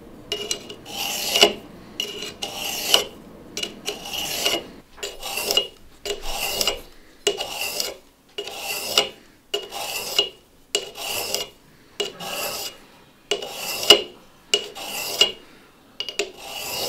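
A steel broadhead's blades are drawn again and again through the diamond-stone grooves of an Ozcut 2 Easy Sharpener. Each pass is a rasping scrape with a thin ringing tone in it, about one and a half strokes a second.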